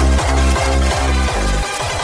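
Electronic dance music with a steady, heavy beat and no singing; the bass drops out briefly near the end.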